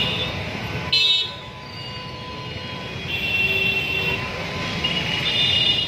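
Busy city junction traffic: motorbike and car engines running, with vehicle horns held about three seconds in and again near the end. A short sharp noise comes about a second in.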